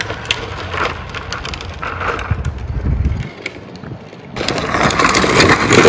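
Green Machine drift trike's hard plastic wheels rolling and grinding over asphalt, with wind on the microphone. The grinding drops away briefly a little after three seconds, then comes back louder about four seconds in.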